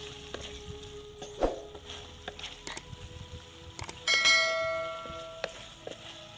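Scattered light clicks and knocks, then a single metallic ring, struck once about four seconds in, that dies away over a second or so.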